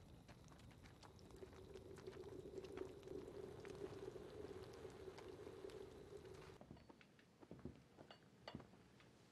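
Near silence: faint background hiss that fades out about two thirds of the way through, followed by a few soft ticks.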